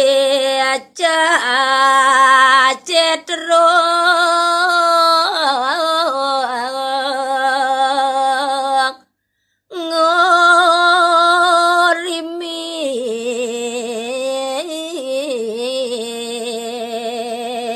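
A woman singing Balinese gaguritan verse (pupuh) solo and unaccompanied, in long held notes with wavering ornaments. She pauses for breath about nine seconds in.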